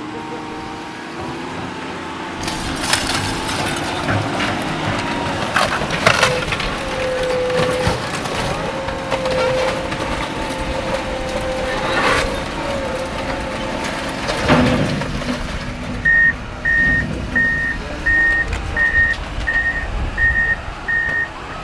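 Heavy equipment running while working demolition debris, with several loud cracking crashes. Near the end a backup alarm beeps steadily, about three beeps every two seconds.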